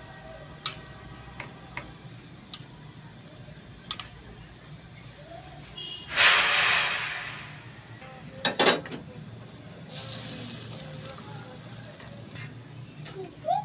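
Rice dosa frying on a hot iron tawa: a low sizzle with small taps of a metal spoon, then about six seconds in a loud burst of sizzling that fades over a second or so as the oiled dosa is turned onto the pan. A couple of sharp metal clacks against the pan follow.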